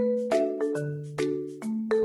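Background music: a light, bouncy tune of struck notes that ring and fade, about two or three a second, over held low chords.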